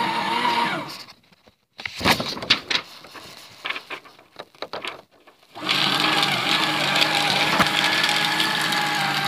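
Fellowes P-35C paper shredder: its motor runs, then stops about a second in, followed by a few seconds of paper rustling and sharp clicks. Near six seconds the motor starts again and runs steadily as a sheet is fed into the slot.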